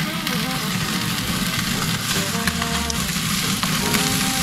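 Barbecue-sauced chicken pieces sizzling steadily on the grate of a charcoal grill, with flames flaring up under the meat.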